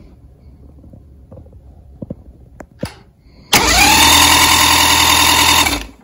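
Electric starter cranking a 1989 Mercury 45 hp four-cylinder two-stroke outboard for a little over two seconds, a steady whine that rises briefly as it spins up, then stops. The engine does not fire: it has lost spark on all four cylinders.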